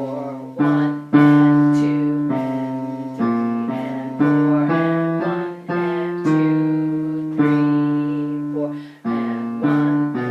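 Piano playing slow chords, a new chord struck every half second to a second, each ringing and fading.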